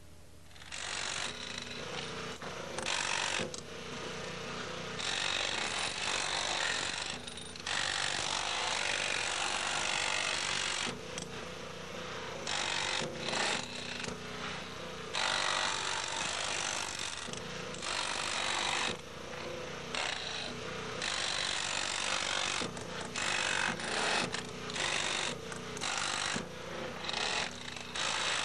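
Pneumatic jackhammer cutting into sandstone, running in bursts of one to several seconds with short pauses between them.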